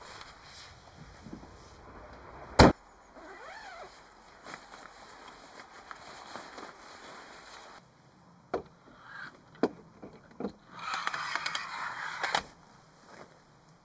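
Camping gear being unpacked and handled: a loud sharp knock about two and a half seconds in, the rustle of a nylon carry bag, then a few sharp clicks and a longer stretch of rustling and scraping near the end.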